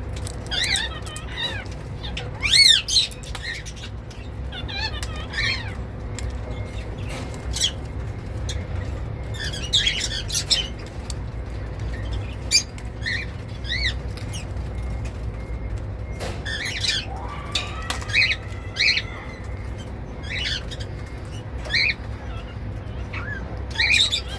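Indian ringneck parrot giving short chirps and squawks every second or two, mixed with sharp clicks as sunflower seed shells are cracked in its beak.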